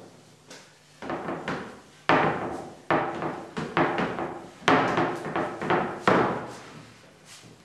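Hand scraping and sanding strokes along a bentwood chair frame: about a dozen irregular rasping strokes, each starting sharply and fading, starting about a second in, thickest in the middle and dying away near the end.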